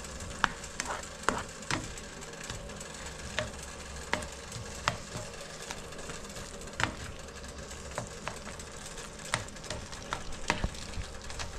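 Tomato and other vegetables frying in a little oil in a pot, sizzling steadily, with irregular sharp clicks as the mixture is stirred.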